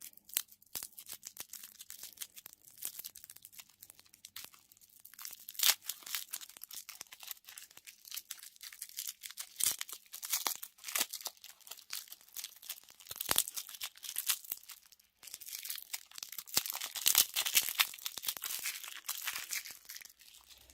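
Candy wrappers being unwrapped by hand: continuous crinkling and tearing with many sharp crackles.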